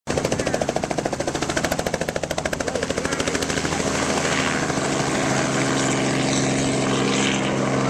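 Small two-bladed helicopter lifting off and flying away: a rapid, even pulsing of the main rotor blades that smooths into a steady engine and rotor hum about four seconds in as it climbs off.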